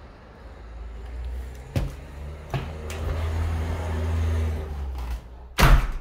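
Low rumble with a faint steady hum, broken by a few sharp knocks, and a loud knock near the end as a front door is handled.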